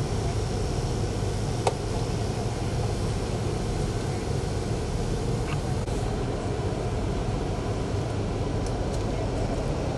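Steady low rumble of idling vehicle engines, with one sharp click about two seconds in.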